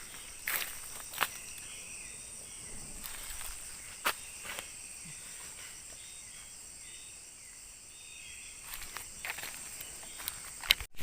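Forest insects droning steadily in a high band, with a short repeated chirping call running through it, and a few short sharp clicks or steps scattered over the ambience. The sound cuts off abruptly just before the end.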